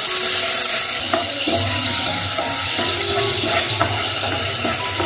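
Water poured into hot oil in a kadai of tempering (mustard seeds, curry leaves, green chillies) sizzling and bubbling loudly, fiercest for about the first second and then settling a little. A spatula stirs the mix, with scattered light clicks against the pan.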